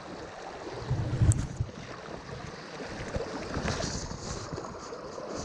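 Shallow stream riffle rushing over stones, a steady water noise, with a dull low thump about a second in.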